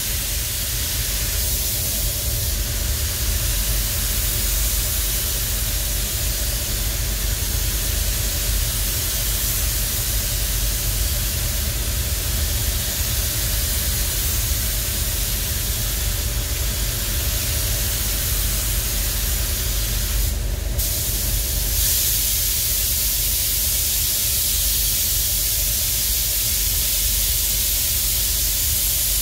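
Compressed-air paint spray guns hissing steadily as a coach bus is sprayed in a paint booth, over a steady low rumble. The hiss drops out briefly about twenty seconds in, then resumes.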